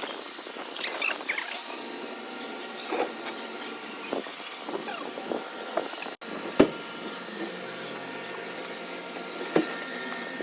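A steady airy hiss, with scattered light clicks and one sharper knock about six and a half seconds in.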